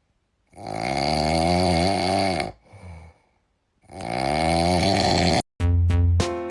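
A sleeping pet snoring: two long, loud snoring breaths of about two seconds each, with a faint breath between. Music starts near the end.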